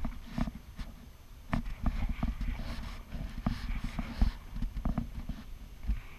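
Kayak being paddled: irregular knocks and splashes from a double-bladed paddle working the water and bumping the plastic hull, picked up with a low rumble by the camera mounted on the kayak.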